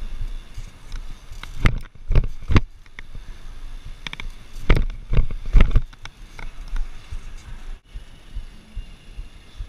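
BMX bike rolling over sidewalk paving, with a steady tyre and wind rumble. Two clusters of sharp knocks and rattles from the bike come about two and five seconds in, three in each.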